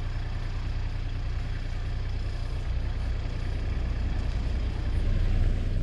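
Mini excavator's diesel engine running steadily while digging, getting a little louder near the end.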